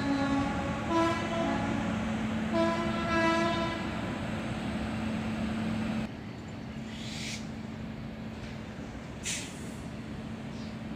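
Indian Railways electric freight locomotive sounding a series of horn blasts in the first four seconds, over the steady rumble and hum of a tank-wagon freight train passing. About six seconds in the level drops suddenly, leaving the quieter steady noise of the wagons rolling by.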